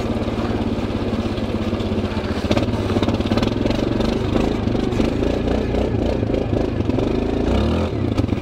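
Linhai ATV's single-cylinder engine running, steady at first, then rising and falling with the throttle from about two and a half seconds in.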